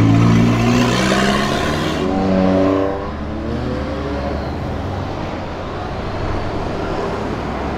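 Cars driving past on a street: engines running and tyre noise, with one engine rising in pitch as it accelerates about two seconds in, then settling to a steadier, quieter run.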